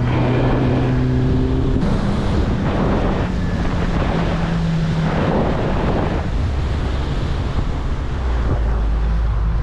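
Outboard motor driving a small aluminium boat at speed, its engine note stepping up about two seconds in, with wind buffeting the microphone and water rushing past the hull.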